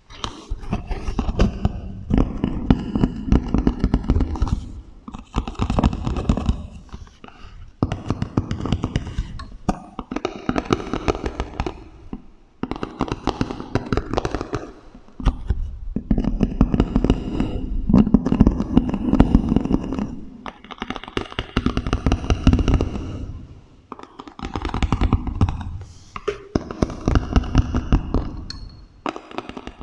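Rapid tapping and scratching on small objects, played through a strong echo effect, in about nine bursts of a few seconds each, separated by short pauses.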